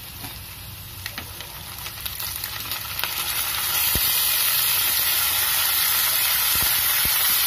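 Raw chicken pieces sizzling in hot oil with fried onion and whole spices in a pan, with a few light knocks. A little over halfway through the sizzle jumps louder to a steady hiss.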